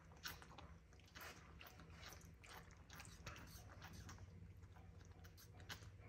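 Faint, irregular soft clicks and smacks of a baby capuchin monkey sucking milk from a nursing bottle.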